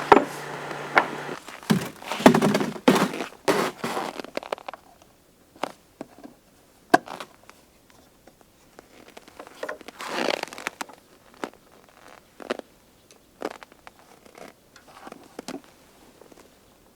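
A steady mechanical hum cuts off about a second in, followed by irregular knocks, clicks and thunks with short quiet gaps.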